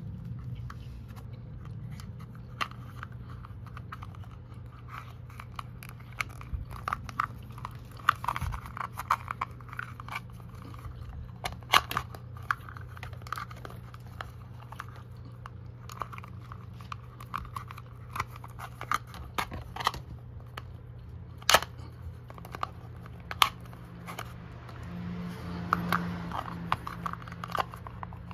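A thin clear plastic container and its wires being handled: scattered small clicks and crinkles, with a few sharper clicks and busier handling near the end. A steady low hum runs underneath.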